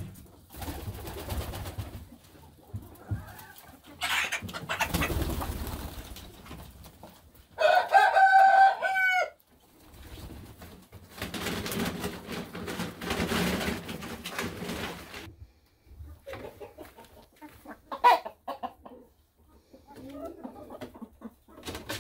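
Domestic pigeons and chickens feeding together, with pecking and scuffling around the grain and clucking. A rooster crows once about eight seconds in; the crow is the loudest sound. A short sharp call comes near the end.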